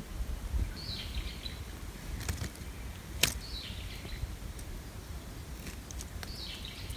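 A songbird sings the same short high phrase three times, about every two and a half seconds, over a low rumble of wind and camera handling. A few sharp clicks come in between, the loudest about three seconds in.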